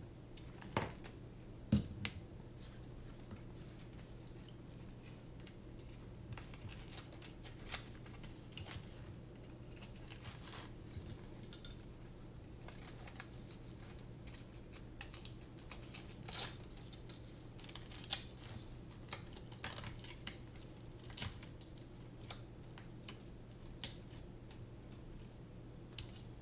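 Scattered light clicks and taps from carbon-fibre drone frame plates and a battery strap being handled and fitted together on a silicone work mat, over a steady low hum.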